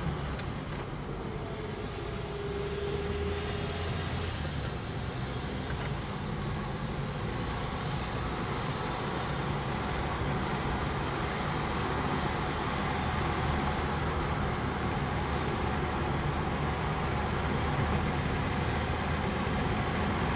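Opel Kadett C heard from inside the cabin, its engine running steadily with tyre and road noise as it drives downhill on a narrow, bumpy road, growing slightly louder toward the end.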